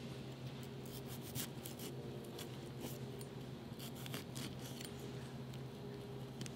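Paring knife cutting around the stem of a green bell pepper: faint, irregular crisp snips as the blade goes through the flesh.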